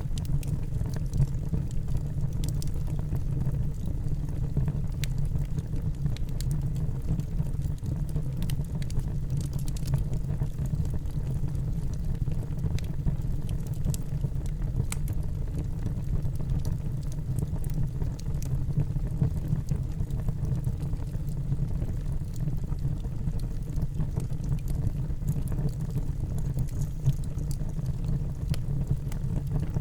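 Wood fire burning in a fireplace: a steady low roar with many scattered crackles and pops.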